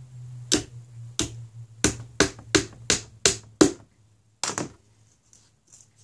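Small hammer tapping on a wooden birdhouse: about eight sharp taps over three seconds, then a quick double tap, with a steady low hum underneath.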